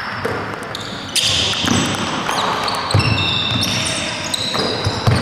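Basketball game on an indoor court: sneakers squeaking on the floor in many short squeals, with a ball bouncing.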